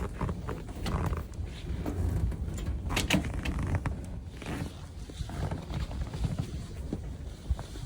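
Snowstorm wind gusting and buffeting the microphone in an uneven low rumble, with a few sharp ticks about three seconds in.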